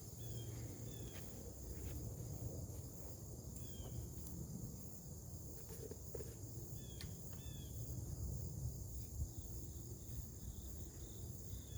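Steady high-pitched insect chirring outdoors, with a few short high chirps scattered through it and a low background rumble.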